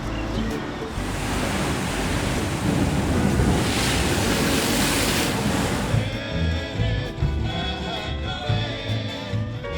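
Background music. About a second in, a loud rushing wash of noise swells over it, peaks near the middle and cuts away about six seconds in, leaving the music clear again.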